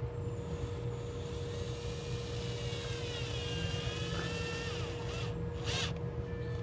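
Right-angle drill driving a screw up into the plastic mud flap. The motor's whine rises and falls in pitch for a few seconds, over a steady low hum, with a short rasp near the end.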